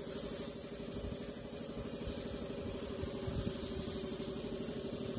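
A motor running steadily with a fast, even pulsing beat, with one short knock about half a second in.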